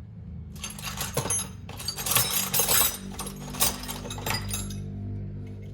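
Small metal hand tools, cutters and threading pieces, clinking and rattling against each other as they are moved by hand, in three clusters of clinks.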